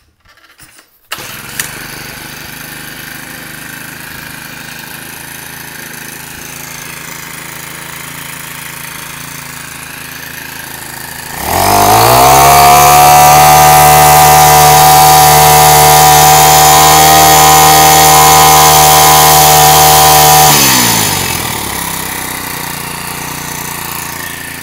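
Honda GX31 31cc four-stroke brush-cutter engine starts up about a second in and idles steadily. Around the middle it is revved to high speed for about nine seconds, then drops back to idle.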